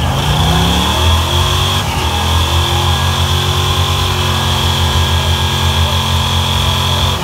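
A station wagon's engine doing a burnout: it revs up in the first second, then is held at high revs while the rear tyre spins on the pavement.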